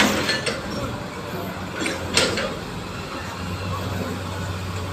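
Heavy earthmoving machinery running steadily, with sharp metallic clanks at the start and again about two seconds in, amid mechanical creaking.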